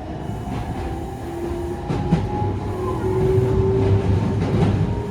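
Running sound of a Meitetsu 3700 series train heard from inside the car: the motor whine climbs in pitch and the running noise grows louder as the train gathers speed. The wheels click over rail joints a few times.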